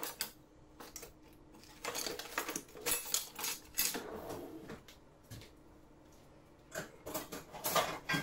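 Kitchenware clattering: a metal oven tray being handled, with knocks and clinks in two spells, one about two seconds in and another near the end.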